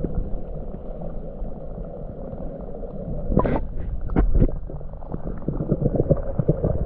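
River current rushing and gurgling, heard muffled through a camera held underwater, with scattered clicks and knocks from about three and a half seconds in that come more often toward the end.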